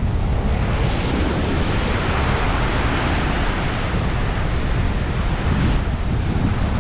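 Ocean surf breaking and washing up a sandy beach, swelling from about a second in and easing near the end, with wind buffeting the microphone.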